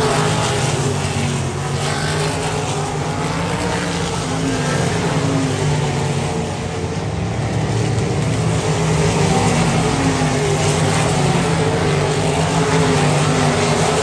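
Several winged sprint cars' V8 engines running together around a dirt oval, their pitches rising and falling as the cars lap.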